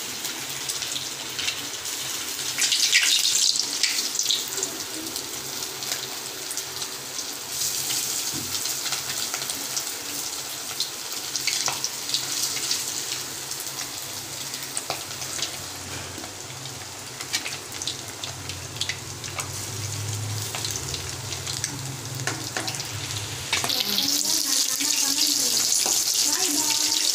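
Marinated paarai (trevally) fish pieces, coated in rice flour and gram-flour masala, sizzling and crackling as they fry in hot oil in a kadai. The sizzle grows louder near the end as a spatula moves the pieces.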